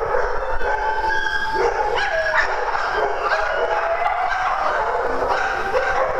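Several dogs at play giving a steady chorus of overlapping barks, yelps and drawn-out whines, many voices at once.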